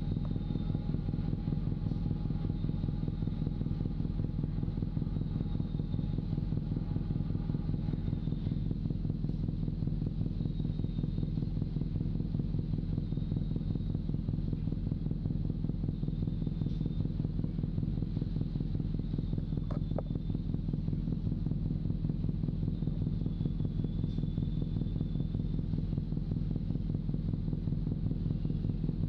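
Large engine running steadily close by: an even, low drone that holds the same pitch throughout.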